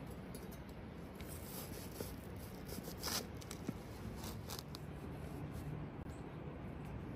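Kitchen knife slicing through a ripe watermelon's rind and flesh, a few short crisp cutting strokes, the loudest about three seconds in.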